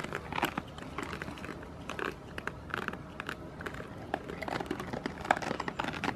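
Goats eating from a hand at close range: irregular chewing and crunching noises with short clicks.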